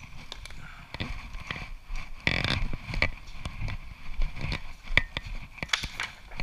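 Footsteps and small knocks and rustles of handling while walking across a workshop floor, with a louder scrape or rustle about two and a half seconds in.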